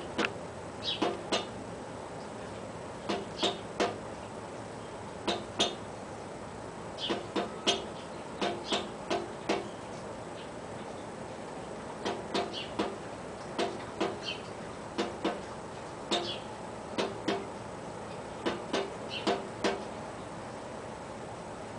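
A thrush tapping its beak against a hard surface, in irregular bursts of two to five sharp taps separated by pauses of a second or more.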